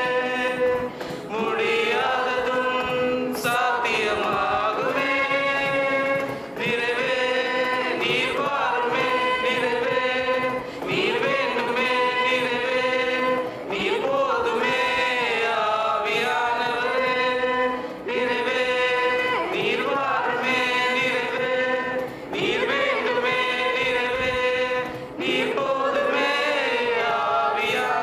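Mixed group of young men and women singing a Tamil Christian worship song together, in long held phrases with short breaks between the lines.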